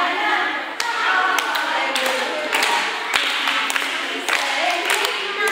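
A group of children and adults singing a song together, with hand claps from about a second in, roughly two a second.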